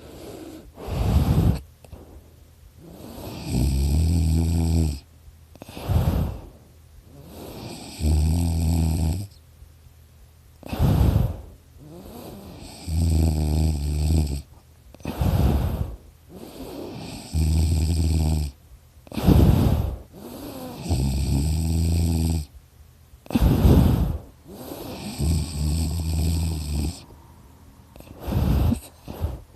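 A person snoring in a steady rhythm, with a long rattling snore about every four to five seconds, each with a high nasal whistle over it, and a short breath between them. The sleeper puts the snoring down to extra tissue in his throat.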